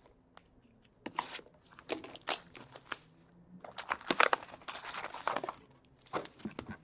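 Plastic wrapping crinkling and tearing as a sealed box of hockey cards is unwrapped, in irregular crackles that start about a second in and are busiest in the middle.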